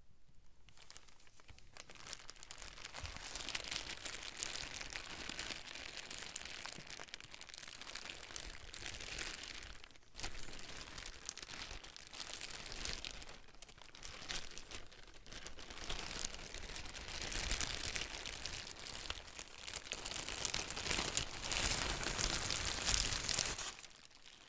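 Crinkling and tearing of packaging being unwrapped and handled, continuous with a brief pause about ten seconds in, loudest near the end before it stops.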